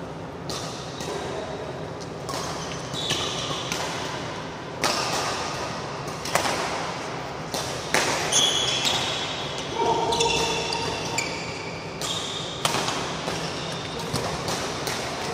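Badminton doubles rally: racket strings cracking against the shuttlecock about once a second, with rubber shoe soles squeaking and footfalls on the court mat.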